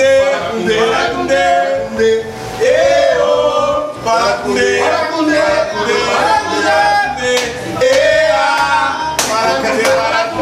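A group of men singing together unaccompanied, a loose chorus with long held notes, and a few hand claps near the end.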